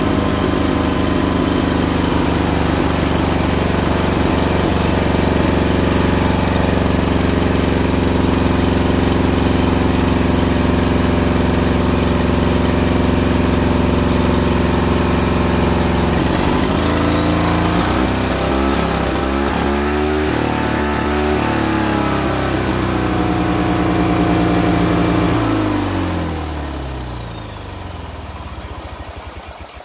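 Turbocharged twin-cylinder Briggs & Stratton lawn tractor engine, fed through a blow-through motorcycle carburetor, running steadily, then revved by hand on the throttle linkage about halfway through, its pitch rising and falling unevenly while a high whistle climbs and slowly falls away. Near the end the engine slows and stops.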